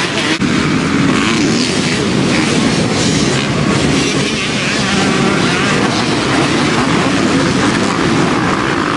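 A pack of racing dirt bike engines running hard together, a steady loud din of many revving motors as the field rides the course.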